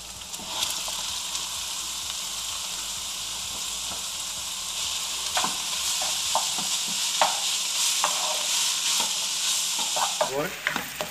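Chopped onions and meat sizzling in hot oil in a pan while being stirred. The sizzle is steady and gets louder about halfway through, and in the second half a spoon scrapes the pan with a string of short strokes.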